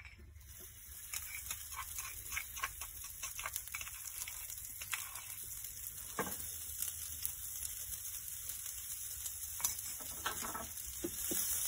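A picada of garlic, toasted almonds, bread and tomato starting to fry in hot olive oil in an electric pan: a steady sizzle that grows louder near the end. Scattered light clicks and scrapes of a metal spoon scraping the paste out of an earthenware mortar.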